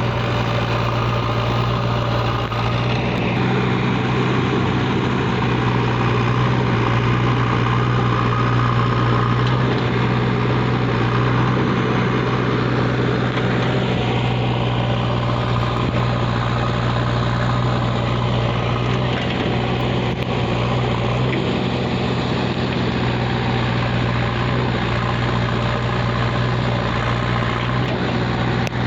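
JCB backhoe loader's diesel engine running steadily under light, varying load, with a constant low drone and a higher mechanical layer that swells and eases a few times.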